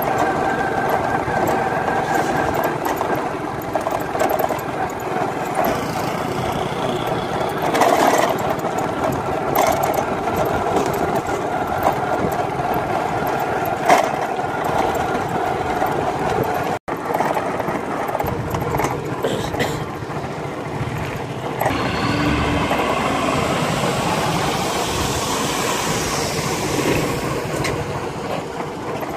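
Small motorcycle engine running steadily while riding along a rough road. The sound drops out for an instant just past halfway.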